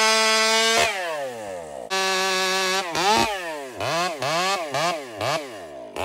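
Two-stroke chainsaw fitted with a bolt-on header-pipe spark arrester muffler, on its first run, free-revving without cutting. It is held at full throttle, drops off just under a second in, comes back to full throttle for about a second, then is blipped up and down about half a dozen times.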